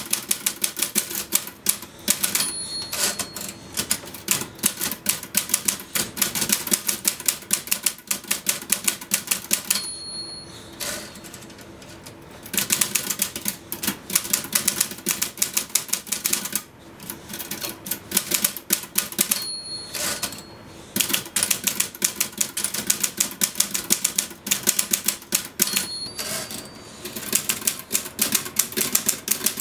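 Typewriter typed fast and hard, a rapid, uneven stream of key strikes with a couple of short pauses. A short bell-like ring sounds four times, typical of the line-end bell before a carriage return.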